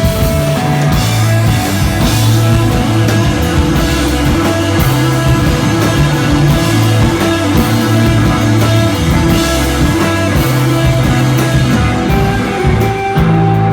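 Live instrumental desert-rock trio of electric guitar, bass and drums playing a loud, droning, spacey piece.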